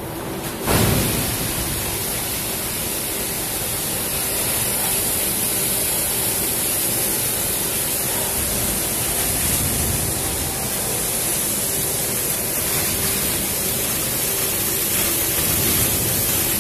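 Steady rushing noise of a tipping trailer bin unloading a load of Brachetto grapes and juice into a stainless steel receiving hopper. It swells in suddenly about a second in and then holds even.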